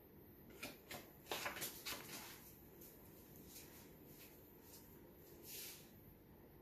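Near silence: quiet room tone with a few faint clicks and rustles in the first two seconds and a soft brush of noise near the end.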